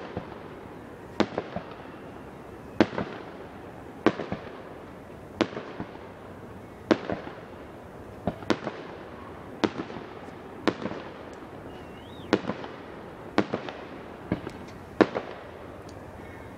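Aerial fireworks bursting in steady succession: a sharp bang about every one and a half seconds, many followed closely by a smaller second report.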